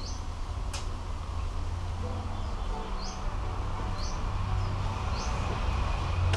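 A bird chirping: short, high, rising chirps about once a second, over a steady low hum.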